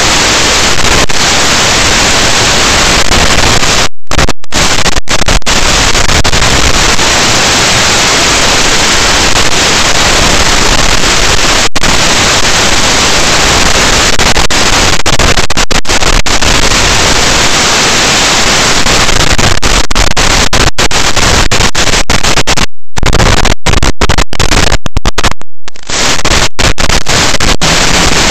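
Loud steady hiss of radio static from an analog video link's audio channel as the signal breaks up and is lost. It cuts out for brief moments a few times, more often near the end.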